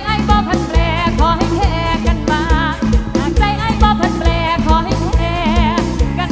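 Isan mor lam band music from a rot hae sound-truck band: a steady drum beat under a melody line with heavy vibrato.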